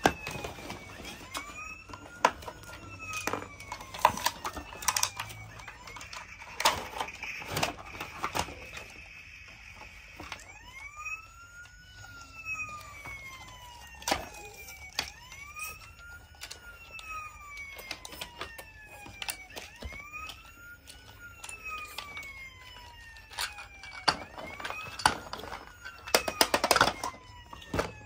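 Happyland Lights & Sounds toy ambulance's electronic siren wailing in a repeating cycle: a quick rise in pitch, then a slow fall, about every four and a half seconds. Clicks and knocks of the plastic toy and cardboard being handled come over it, most at the start and near the end.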